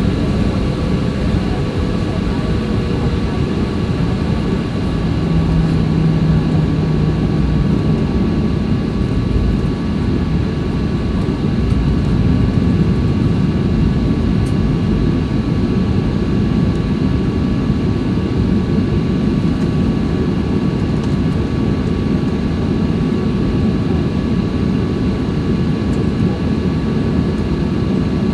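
Jet engines of a Boeing 737-800 heard from inside the cabin: a steady, loud rumble with a thin steady whine above it.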